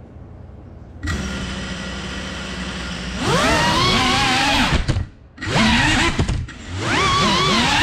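Cinewhoop FPV drone's motors and propellers: a steady hum starts about a second in, then a loud whine that rises and falls in pitch with the throttle, dropping out briefly twice near the middle as the throttle is chopped.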